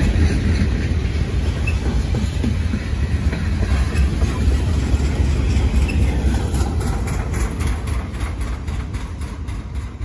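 Freight train of boxcars rolling past: a steady low rumble of wheels on rail, with regular clicks over the rail joints in the second half, fading as the last cars go by.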